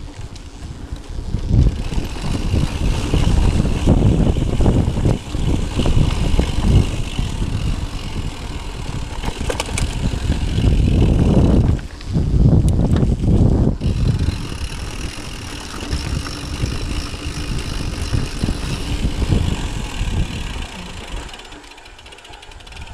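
Mountain bike riding down a dry dirt singletrack: a steady rumble of tyres on dirt and wind on the microphone, with frame and chain rattling and knocking over bumps, and the rear freehub's ratchet buzzing while coasting. The rumble eases briefly about twelve seconds in and again near the end.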